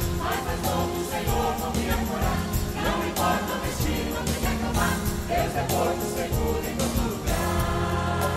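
Choir singing over instrumental accompaniment with a steady percussive beat.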